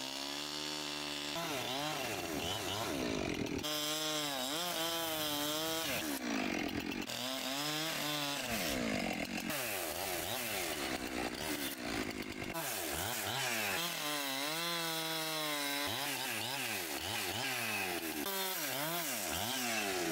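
Chainsaw cutting into a log during carving, the engine pitch rising and falling over and over as the chain bites into the wood and is eased off.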